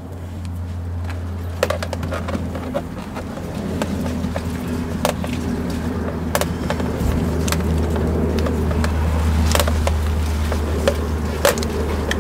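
Scattered light clicks and taps of multimeter test leads and probes being handled and set against a 12 V leisure battery's terminals, over a steady low rumble that grows slightly louder after about four seconds.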